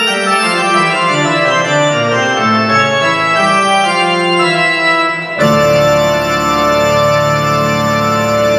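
Organ music: a line of changing held notes, then about five seconds in a loud sustained chord with a deep bass note underneath.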